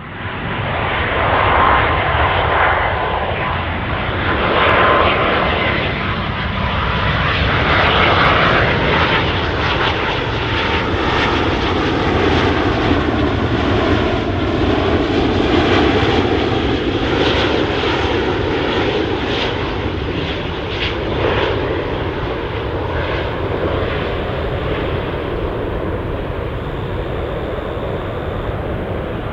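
Boeing 777 twin-jet airliner on final approach with its gear down, its engines a loud, steady rushing jet noise. A thin whine sits on top for the first few seconds, and a hollow tone sweeps slowly through the sound as the plane passes.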